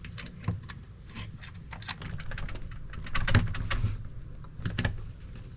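Scattered clicks and light knocks of a pneumatic screen door closer being fitted to its mounting brackets, its pins pushed in by hand. The loudest knocks come about three seconds in.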